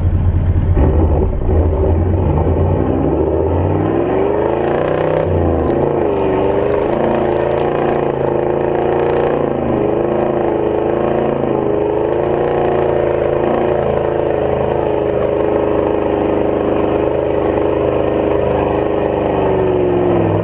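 V8 Toyota LandCruiser engine working hard driving through soft sand, revving up a few seconds in, then held at high revs with the pitch rising and falling as the throttle is worked, and easing off at the very end.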